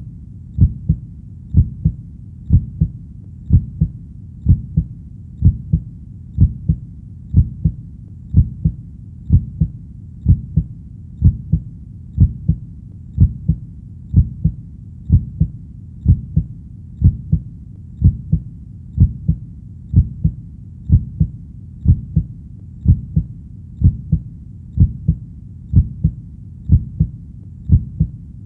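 Heartbeat sound: steady lub-dub double thumps at about one beat a second, over a constant low rumble.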